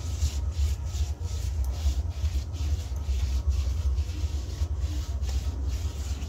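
A hand smearing and rubbing wet mud over a clay cooking stove to re-coat it, in even rubbing strokes about twice a second. A steady low hum runs under the strokes.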